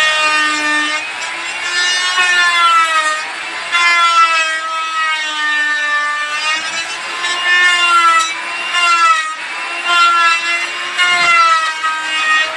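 Electric woodworking power tool running under load, its motor whine sagging and recovering in pitch in repeated strokes of about one to two seconds.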